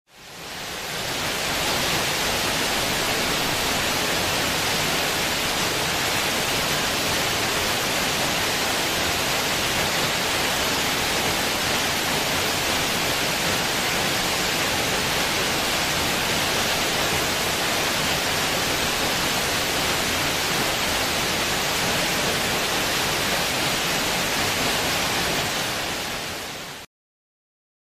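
Steady, even rushing of a waterfall. It fades in over the first second and cuts off suddenly about a second before the end.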